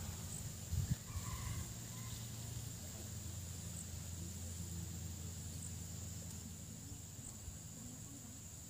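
Night insects chirring in a steady, high-pitched drone over a low rumble, with a few faint short calls about a second in.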